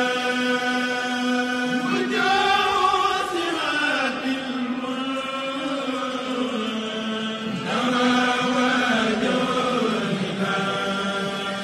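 Islamic devotional chanting: a sung voice holding long, drawn-out notes that slide down and back up in pitch.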